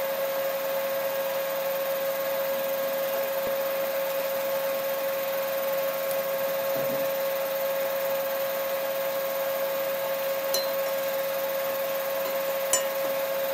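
Pakoras deep-frying in a kadhai of hot oil with a steady sizzle, over the steady hum of an induction cooktop. A few light clicks of the metal spider skimmer against the pan come near the end.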